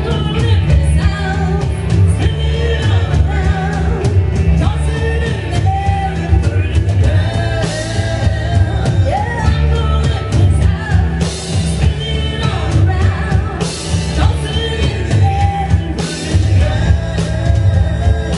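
A live rock band playing, with a woman singing lead over electric guitars, bass and a drum kit, with several cymbal crashes.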